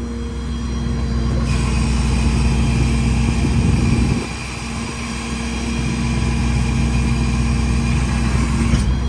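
The truck's 6.7 L Power Stroke V8 diesel running, with a steady mechanical hum over it. The sound builds over the first couple of seconds, drops off sharply about four seconds in, then builds again, as the engine's load changes.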